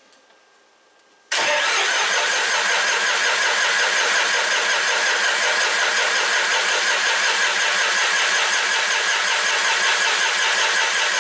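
John Deere 5400's three-cylinder diesel turning over on the starter with the throttle opened toward high idle. It starts abruptly about a second in and cranks steadily without firing, because the fuel lines are cracked at the injectors to bleed air out of the fuel system.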